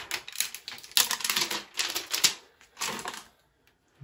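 Protective plastic film being peeled off a graphics card's metal backplate: a rapid crackling that stops about three seconds in.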